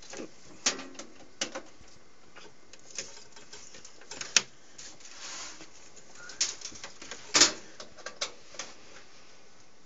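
Scattered clicks and knocks of cables and plugs being handled and pushed into a desktop PC, irregular and a second or so apart, the loudest about four and seven seconds in.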